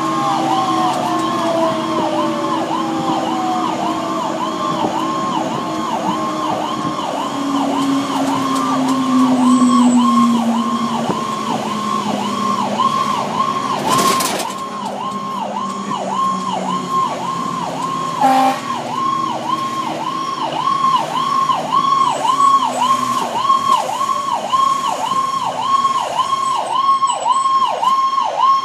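Fire engine siren in a fast yelp, heard from inside the cab, rising and falling about twice a second. A second, lower tone slides slowly down in pitch during the first half, and a single sharp knock comes about halfway through.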